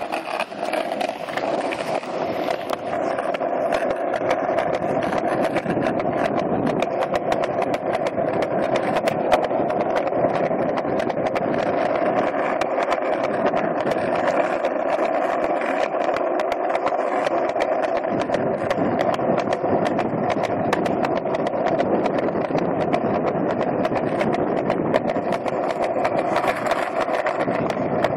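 Skateboard wheels rolling steadily over a concrete sidewalk: a constant rolling drone with frequent short clicks as the board runs over the slabs.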